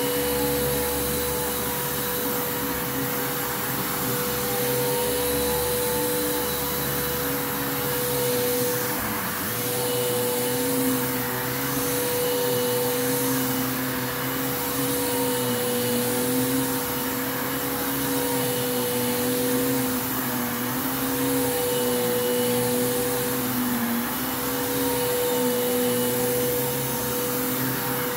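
Bissell Lift-Off Revolution Turbo upright vacuum cleaner running on a rug: a steady motor whine over rushing airflow. The hiss swells and eases about once a second as the vacuum is pushed back and forth.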